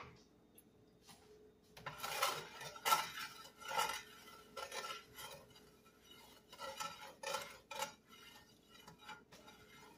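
A spatula scraping and knocking around the bottom of a nonstick skillet, spreading the oil and drippings, in a run of short strokes from about two seconds in until near the end.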